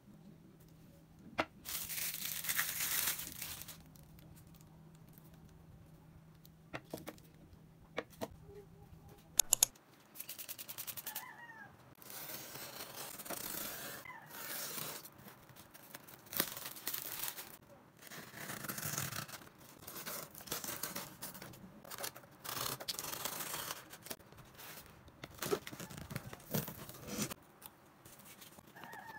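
Packaging being opened by hand: a plastic wrapper crinkles about two seconds in, then from about ten seconds on packing tape is peeled and torn from a cardboard box, with the cardboard, plastic wrap and bubble wrap rustling in many short irregular bursts.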